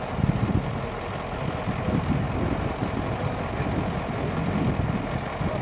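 Diesel engine of a crane truck running steadily at idle, a low rumble.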